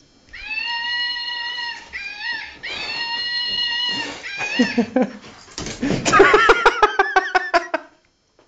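Siberian husky vocalizing in play: two long, steady high-pitched howling whines, then a fast run of short yelping grumbles, about eight a second, near the end.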